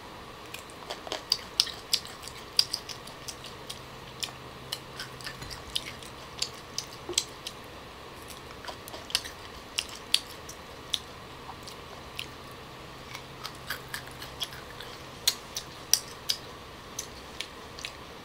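Close-up chewing and biting of young green tamarind pods: an irregular run of short, sharp crunches and mouth clicks, over a faint steady hum.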